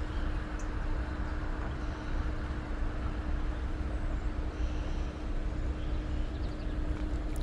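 Steady low outdoor rumble with a constant low hum throughout, and a few faint high chirps.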